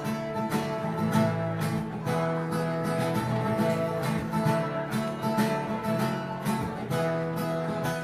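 Acoustic guitar strummed in a steady rhythm, playing the instrumental intro to a country song. The chord changes about two seconds in and again near the end.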